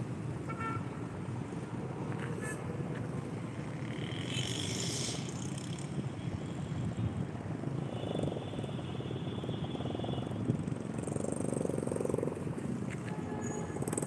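Steady low rumble of road traffic, with a few faint higher sounds in the middle.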